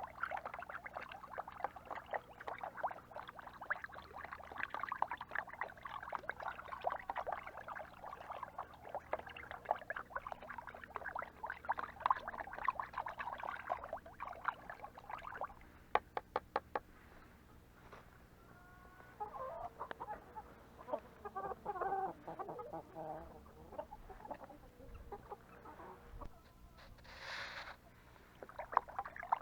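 A flock of chickens clucking and chattering, busiest in the first half, with a quick run of clicks near the middle.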